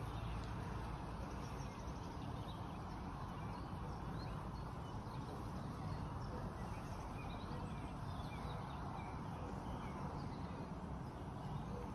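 Outdoor garden ambience: scattered short chirps of small birds over a steady background hiss.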